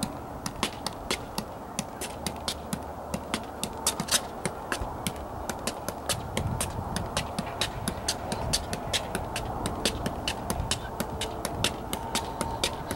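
Soccer ball being juggled off the feet, a steady run of light thuds about three a second as the foot taps it back up.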